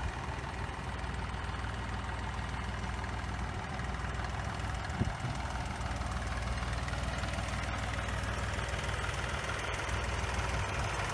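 Fordson tractor engine idling steadily.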